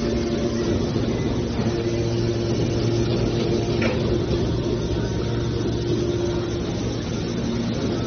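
Hydraulic scrap metal baler's power unit running, a steady low machine hum with a few fixed tones. A faint click about four seconds in.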